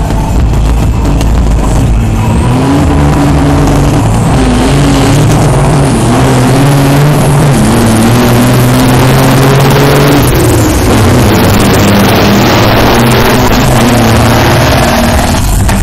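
Two heavily loaded semi trucks' big diesel engines accelerating flat out in a drag race, very loud. The engine note climbs and drops back again and again as they shift up through the gears, and a truck passes close by near the end.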